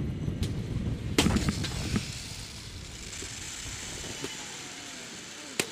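Wind rush on the microphone of a head-first zip-line ride, dying down over the first two seconds as the rider slows. A steady high hiss with a faint falling whine follows from the trolley running on the steel cable, with a few knocks and a sharp click near the end.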